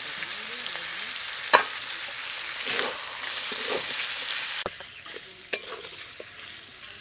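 Boiled chicken pieces sizzling in hot oil in a steel karai as a steel spatula stirs them into fried onion, garlic and ginger. A sharp click of the spatula on the pan comes about one and a half seconds in; the sizzle drops off after about four and a half seconds, leaving quieter stirring and another click.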